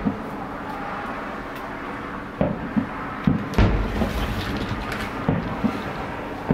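Fireworks shells bursting: a string of sharp bangs and thuds, about seven in all, the heaviest with a deep boom about three and a half seconds in, over a steady background hiss.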